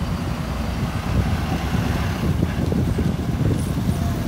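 A bus engine running as the bus drives up close, with road traffic noise.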